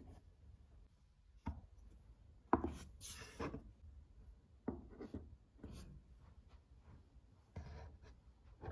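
Small objects being handled and set down on a hard shelf top: a string of light knocks and clicks, the loudest about two and a half seconds in, with short bursts of rustling between them.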